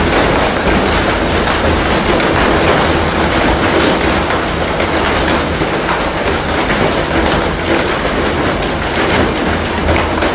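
Hailstorm: hail and heavy rain pelting down in a dense, steady hiss, with countless sharp hits of hailstones striking the ground and surfaces.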